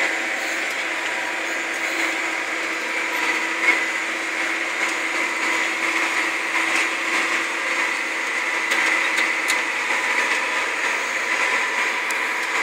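John Deere tractor running steadily under load while pulling a disc, heard from inside the cab as an even drone with a steady whine, and one sharp knock a little under four seconds in.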